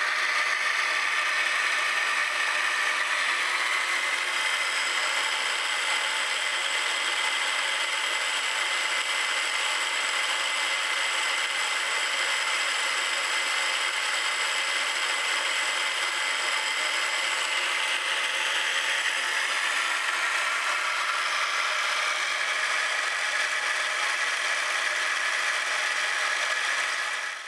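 Hypneumat MH-1002 two-spindle drilling head running steadily on its test stand during its final assembly test. The motor-driven gear train and ball-bearing spindles give a steady whine, and the pitch shifts slightly about two-thirds of the way through.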